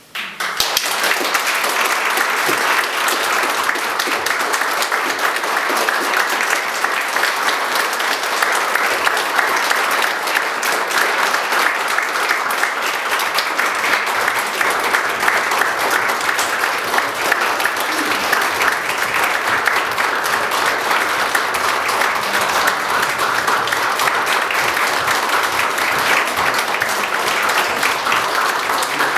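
Audience applause: many people clapping together at a steady level, starting right as the singing ends.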